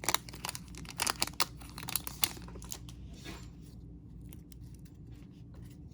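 Baseball cards being handled and flipped through: a quick run of sharp flicks and scrapes of card stock sliding against card stock, thinning out to occasional soft clicks after about two and a half seconds.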